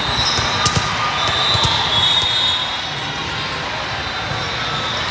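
Busy sports-hall ambience at a multi-court volleyball tournament: a steady echoing murmur of voices with scattered sharp thuds of volleyballs being bounced and struck.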